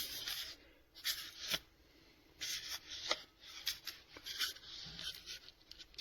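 Faint handling noises of a cordless mini angle grinder: short spells of rubbing and scraping with light clicks as an adjustable part is worked back and forth within its limited range of movement.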